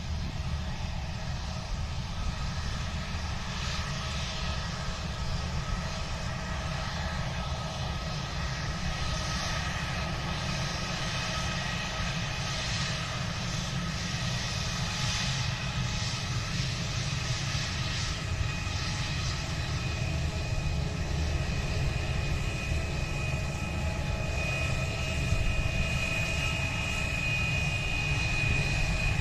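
Jet engines of a Super Air Jet airliner running steadily, a continuous rumble under a high whine that grows stronger near the end.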